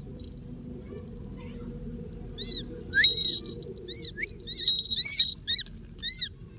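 Besra calling repeatedly with short, high notes that rise and fall in pitch. The calls begin about two seconds in and come faster toward the end, over a low steady rumble.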